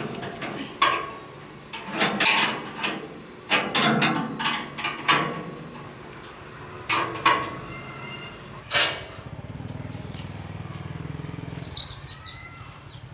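A string of sharp knocks and clanks at uneven intervals, typical of hand work on machine parts, then a steady low hum for a few seconds near the end, with a couple of short chirps over it.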